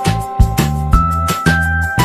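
Background music with a steady beat: sustained keyboard-like melody notes over a bass line.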